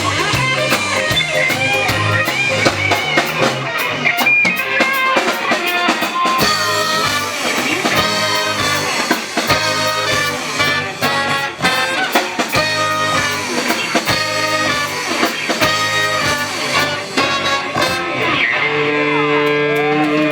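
Live band playing an instrumental passage on guitar and drums, with chords repeating in a steady rhythm and held notes near the end.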